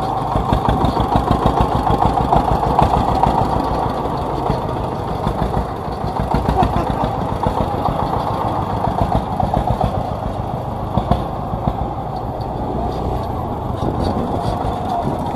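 Single-cylinder diesel engine of a grandong, a homemade village farm truck, running steadily under way with a fast, even chugging.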